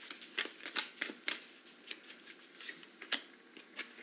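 Tarot cards being shuffled and handled: irregular soft flicks and snaps of card against card, about a dozen in a few seconds.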